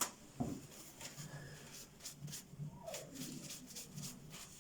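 Sandpaper rubbed in short, scratchy strokes on a rubber bicycle inner tube, roughening the surface around the puncture so the patch and glue will stick.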